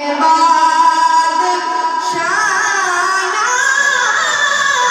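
A man singing a naat into a handheld microphone, holding a long steady note and then sliding into ornamented melodic turns about two seconds in.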